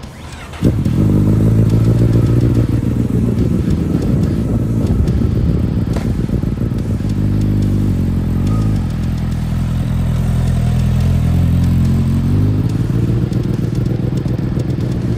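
Honda CBR1000 sportbike's inline-four engine starting about half a second in and running steadily at idle. Its pitch shifts a couple of times and rises near the end as the bike pulls away.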